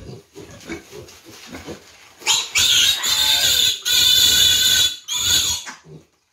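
A piglet squeals loudly as it is caught and held up by its hind legs. About two seconds in come three long, shrill shrieks, one after another, which stop near the end.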